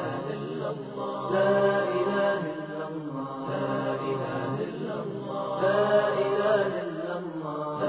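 Voices chanting together in long held phrases, with a new phrase swelling up about a second and a half in and another near six seconds.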